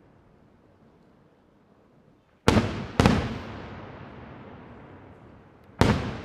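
Aerial firework shells bursting overhead. After a lull come two loud bangs about half a second apart, each trailing off in a long rolling echo, then a third bang near the end.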